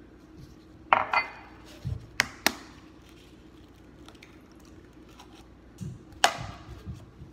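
Eggs knocked against the rim of a glass measuring cup to crack them open: a few sharp clinks and knocks, two in quick succession about two seconds in and another near the end.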